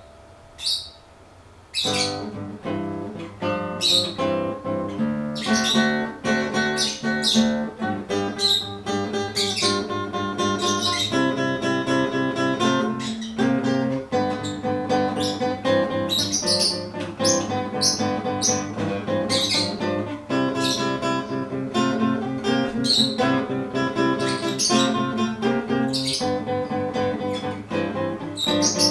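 Plucked and strummed acoustic guitar music, starting after a short pause about two seconds in, with short bird chirps over it.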